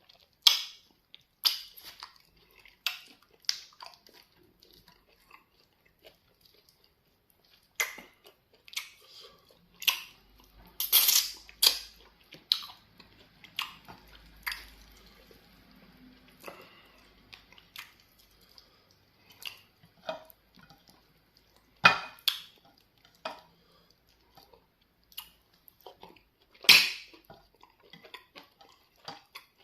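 Close-miked eating sounds: wet chewing, swallowing and lip smacks as swallows of amala fufu are eaten with slimy okra soup, in irregular short bursts, the loudest about eleven, twenty-two and twenty-seven seconds in.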